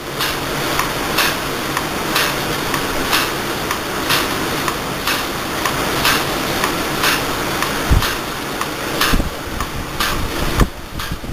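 Milking machine running: a steady vacuum hiss with a regular pulsator click about once a second as the teat cups work on a cow's udder.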